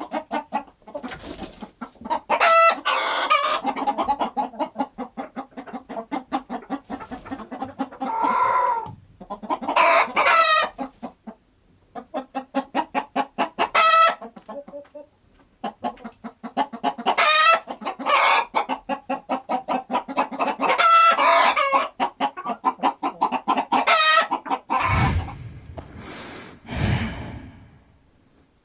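Chickens clucking in rapid runs of short calls, with longer pitched calls, typical of rooster crows, breaking in every few seconds. Near the end the clucking gives way to a few low, breathy blows from another animal.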